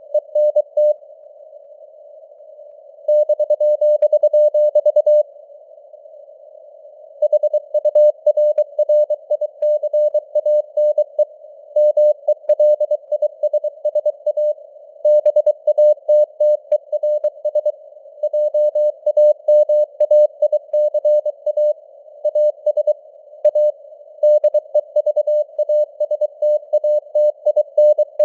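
Morse code (CW) sent at 23 words per minute as a single mid-pitched tone keyed in rapid dots and dashes, over a narrow band of simulated radio hiss. The keying stops for a few seconds twice, about a second in and again about five seconds in.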